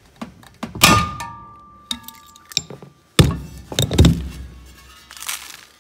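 Hand pop-rivet tool clicking as its handles are squeezed, then a sharp metallic snap about a second in as the stainless steel rivet's mandrel breaks off, with a metallic ring that lasts a couple of seconds. Then heavy thuds as the steel wheel is lifted and moved.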